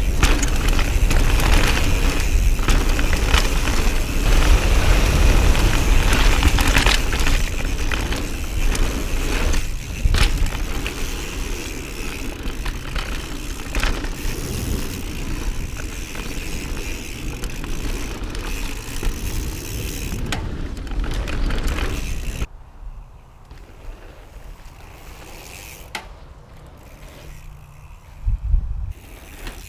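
Mountain bike ride on a dirt downhill trail: tyre noise and wind on the microphone, with frequent knocks and rattles over bumps. About 22 seconds in it drops suddenly to a much quieter hush, with a couple of soft thumps near the end.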